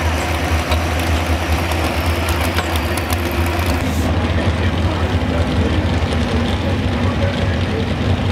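Heavy pulling-vehicle engines idling with a deep, steady rumble. A crackling clatter of fast clicks above the rumble cuts off abruptly about four seconds in; after that a supercharged modified pulling truck's engine idles on its own.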